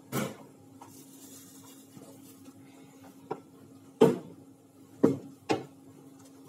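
Handling knocks and bumps on a wooden tabletop close to the microphone: a few sharp knocks, the loudest about four seconds in, over a faint steady hum.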